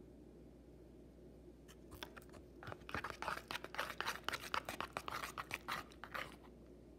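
A white plastic utensil stirring thick shampoo slime in a plastic bowl: a quick, irregular run of small clicks and scrapes that starts about two seconds in and stops just after six seconds.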